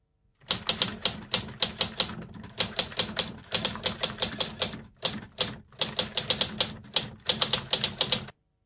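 Rapid, irregular clacking of typing keys in quick runs with short pauses over a low steady hum, stopping abruptly near the end.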